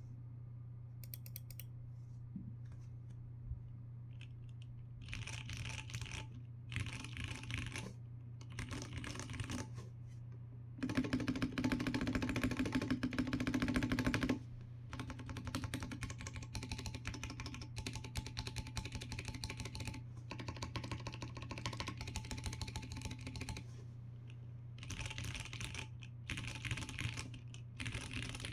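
Typing on a gasket-mounted mechanical keyboard with Cherry MX2A Purple switches, an FR4 plate and an aluminium case: a few stray key clicks, then runs of rapid keystrokes broken by short pauses. About eleven seconds in comes a louder, denser flurry of keys lasting about three and a half seconds.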